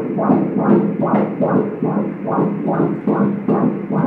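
Doppler ultrasound audio of a 29-week fetus's heartbeat from the ultrasound machine's speaker: fast, evenly spaced pulses, a regular fetal heart rhythm of about 136 beats a minute.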